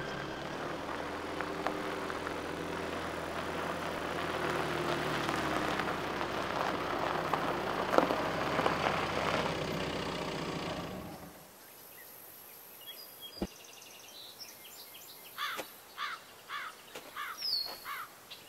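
A Volkswagen Golf hatchback rolls slowly over a gravel driveway with its engine running, and the engine is switched off about eleven seconds in. After that, birds chirp in a quick repeated series, and there is a single click from the car.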